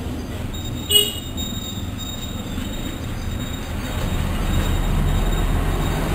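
Low rumble of passing road traffic that swells over the last couple of seconds, with a short high-pitched horn toot about a second in.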